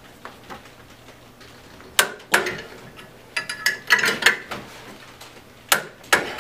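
Wrenches tightening the bolts of a gasketed pipe flange on the last pass up to full torque, giving sharp metallic clicks: one about two seconds in, a quick run of them in the middle, and two more near the end.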